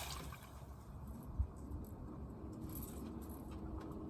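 Low rumble of wind on the microphone, with a single soft thump about a second and a half in and a few faint small clicks.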